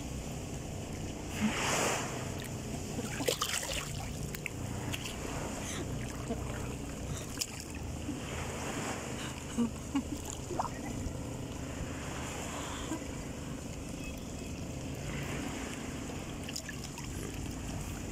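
Shallow sea water lapping and splashing close to the microphone, under a steady low rumble of wind and surf, with a few sharper splashes at moments, about two seconds in and again near the middle.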